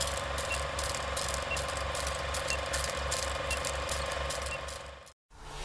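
Film projector clattering steadily, the typical sound effect laid under a film countdown leader, with a faint short high beep once a second. It fades out about five seconds in.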